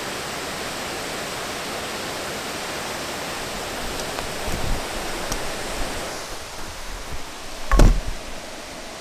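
Steady rush of a rocky stream flowing over stones. From about three and a half seconds in, the camera is handled, with low bumps and rustling, and the water grows quieter. Near the end there is one sharp, loud thump as a hand knocks the camera.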